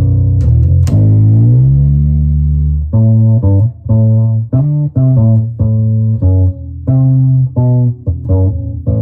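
Warwick RockBass Corvette $$ electric bass played through a small 8-inch combo amp, on its neck pickup wired in parallel with the tone control off. A held note slides upward, then a run of short plucked notes follows, about two to three a second.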